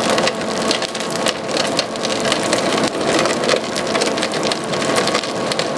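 Screw press crushing whole raw pistachios: a loud, continuous crackling of shells cracking inside the press as the crushed press cake is pushed out at the discharge cone. The operator takes the raised noise inside the press as a sign that the cone is applying good back pressure.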